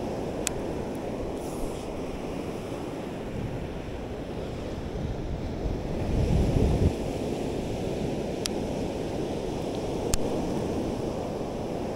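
Ocean surf breaking and washing up the beach, with wind buffeting the microphone. A stronger low rumble comes about six seconds in, and a few short clicks are scattered through.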